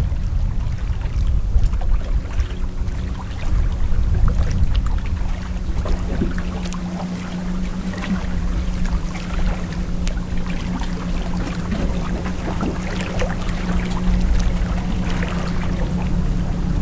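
Lake water lapping and splashing with a low wind rumble on the microphone; a steady low motor hum, like a boat engine, comes in a few seconds in.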